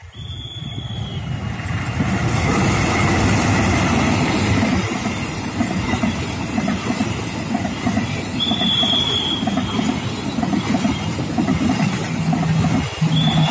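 Passenger train's coaches rolling past close by: a loud, steady rumble and rattle of wheels on the rails that builds over the first two seconds, with a few brief high squeals from the wheels.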